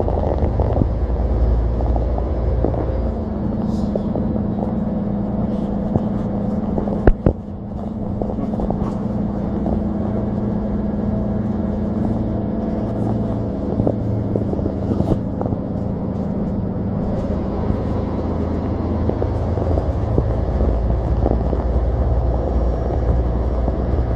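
Inside a moving city bus: a steady engine drone with road rumble and small rattles from the cabin, and one sharp knock about seven seconds in.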